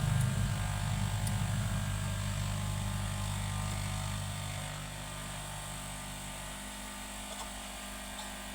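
Steady low electrical hum with a hiss, from a hot air rework station set to 350 degrees, which is desoldering a phone's charging connector. The hum fades about five seconds in.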